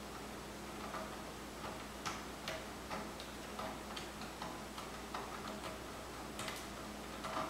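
Faint, unevenly spaced light metal clicks, about two or three a second, as a 9/16-inch left-hand-threaded pedal is turned onto a vintage bicycle's crank arm.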